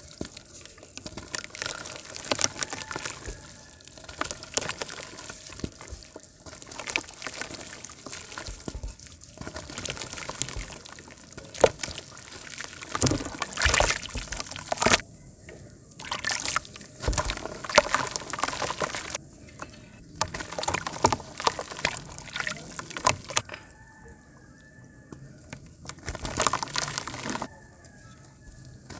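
Dry mud shapes crumbling in a tub of water as hands squeeze and break them: irregular splashing and sloshing mixed with crackling as the dirt falls apart, with a few brief pauses.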